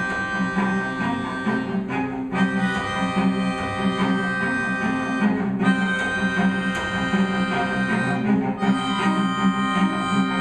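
Melodica holding sustained chords over a cello playing a low part, in a duo piece evoking a railroad. The melodica's chords break off briefly three times: about two, five and a half and eight and a half seconds in.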